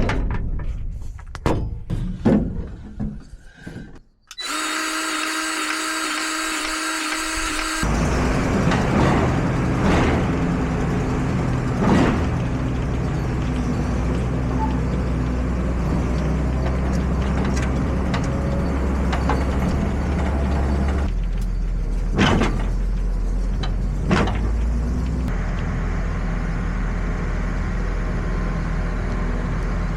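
A combine harvester's engine running steadily, with a few sharp knocks over it. It is preceded by a few seconds of clicks and then a steady pitched hum.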